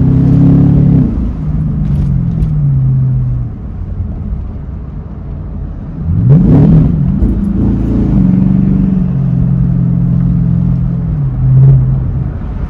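Tuned Camaro SS's L99 6.2-litre V8 on the move. Its revs fall away at first, with a couple of sharp exhaust cracks. About six seconds in the pitch climbs quickly under hard acceleration, then holds steady and eases off near the end.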